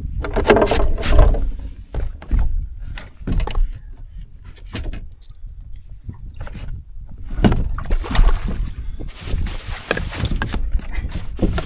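Wind rumbling on the microphone with irregular knocks and clatters from handling fishing gear in a small boat, and a stretch of hiss about eight seconds in.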